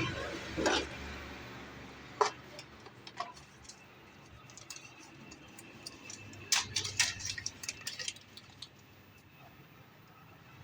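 Small sharp clicks and taps of tools and small parts being handled on a phone-repair bench while the new charging connector is picked up: single clicks early on, then a quick run of clicks about six and a half to eight seconds in.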